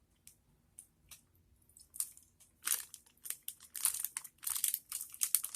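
Plastic candy wrapper being handled: a few faint clicks, then crinkling that grows denser and louder from about two seconds in.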